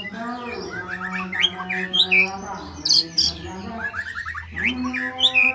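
Young white-rumped shama singing in short bursts of high whistled notes and quick chirp series, over a steady low hum with overtones.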